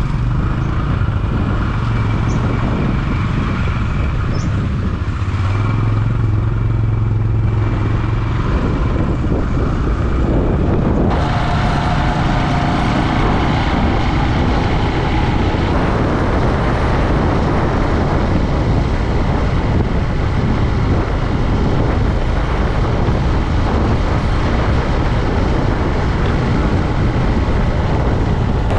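Bajaj Discover motorcycle's single-cylinder four-stroke engine running at low speed, heard from on the bike. About eleven seconds in, it gives way to a steady cruising drone mixed with wind and road noise.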